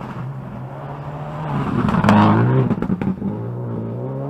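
Rally car passing at speed on a gravel stage: the engine revs climb to a loud peak about two seconds in, then drop as it goes by, with several sharp cracks during the pass. Near the end another engine runs steadily.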